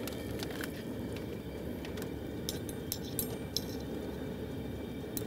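A few light metallic clinks of a wire turkey-fryer rack and lifting hook being handled, scattered over a steady background hiss.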